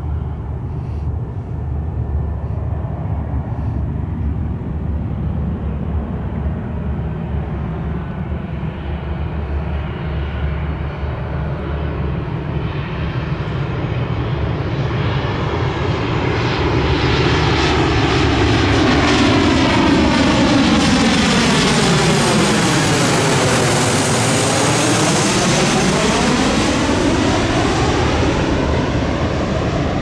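Boeing 737 jetliner on final approach with its gear down, passing low overhead on its engines. The engine noise grows through the first half and is loudest over the last third. As it passes overhead, a whooshing sweep falls and then rises in pitch.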